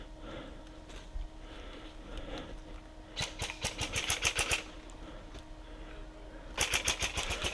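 Airsoft rifle firing on full auto: two rapid bursts of evenly spaced sharp clicks, one about three seconds in lasting about a second and a half, and another starting near the end.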